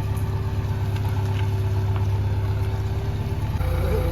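JCB 3DX backhoe loader's diesel engine running steadily at a low, even speed; about three and a half seconds in, its note shifts.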